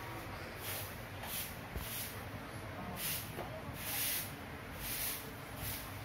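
Maspion orbit ceiling fan running at full speed: a steady low motor hum, with a hiss that swells and fades irregularly.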